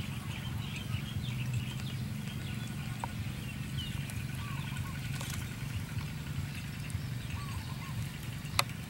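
Small birds chirping over a steady low hum, with light clicks of a fork against a ceramic plate as flour and egg are mixed, and one sharp tap near the end.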